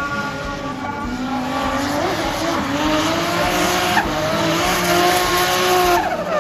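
Nissan C33 Laurel drift car sliding sideways at full throttle: the engine is revving hard, its pitch rising and falling with the throttle, over loud tyre squeal and rushing tyre noise. The sound changes abruptly twice, about four and six seconds in.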